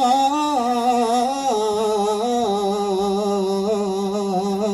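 A single voice sings one long melismatic phrase in Arabic sholawat style, wavering and stepping gradually downward in pitch, with no drumming under it.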